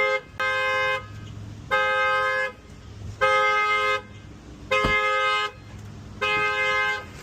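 Car horn honking over and over in even, two-note honks of just under a second, about one every second and a half: the car's alarm going off after the locked trunk was opened without the key. A single sharp knock comes about five seconds in.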